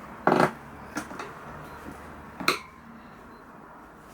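Tyre levers clinking against a motorcycle wheel rim while a tyre bead is levered on: a loud clank with a short ring about a third of a second in, a lighter click at about a second, and a sharp clink about two and a half seconds in.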